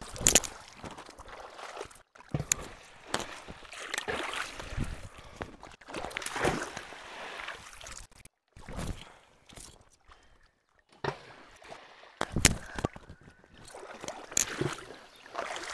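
Water splashing and sloshing in a shallow stream, broken by several sharp splashes.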